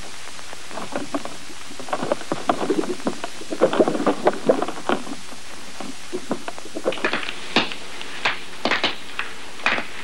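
Playing cards being riffled down one after another, heard as slowed-down sound: an irregular patter of card snaps, thickest a couple of seconds in and sharper near the end, over a steady old-film hiss.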